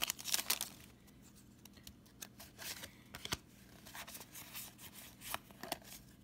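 Foil wrapper of a Pokémon TCG Evolutions booster pack torn open and crinkling in the first second, then quieter rustling and light clicks as the cards are pulled out and slid through the hands.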